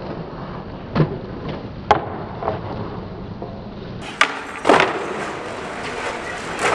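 Skateboard sounds: wheels rolling on concrete, broken by several sharp clacks of the board striking the ground and a wooden bench. The first few seconds sound duller, and the loudest knock comes about two-thirds of the way through.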